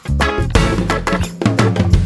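Upbeat background music with drums, bass and guitar, keeping a steady beat.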